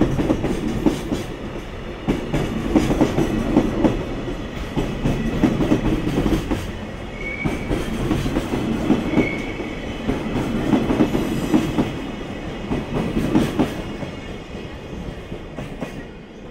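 Freight train's container wagons rolling past, wheels clicking over rail joints in a steady clatter, with a couple of brief faint wheel squeals midway. The noise dies away near the end.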